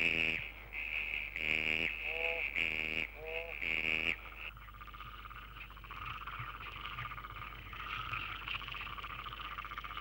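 Frogs calling: a loud, rhythmic run of croaks, about two a second, which stops about four seconds in and gives way to a softer, continuous trilling chorus.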